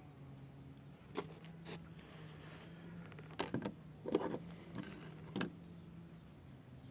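Italian stiletto switchblade being handled, with a series of sharp metallic clicks and snaps as the blade is fired open and closed, the loudest cluster a little past the middle.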